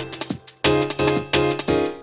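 Electronic music with a steady driving beat, which drops out briefly about half a second in and then comes back.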